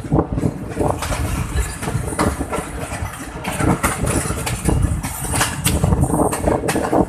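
Passenger train coach moving along the track, heard from an open window: the wheels clatter irregularly over the rails, and wind rushes over the microphone.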